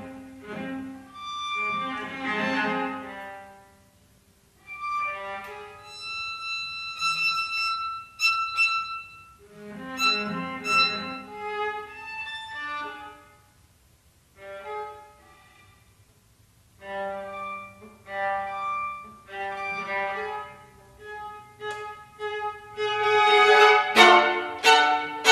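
A string trio of violin, viola and cello playing contemporary chamber music in short, broken-off fragments separated by near-silent pauses. A high note is held for a few seconds partway through, and near the end all three build to a loud, dense passage.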